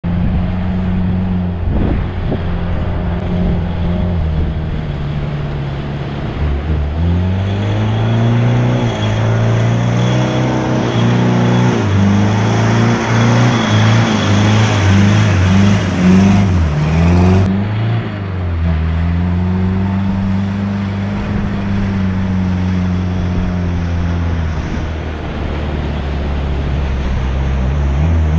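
Toyota Hilux LN167's 5L four-cylinder diesel engine revving up and down repeatedly as the 4x4 ploughs through shallow floodwater, with water splashing and spraying off the wheels. The splashing is loudest in the middle, as the truck comes close.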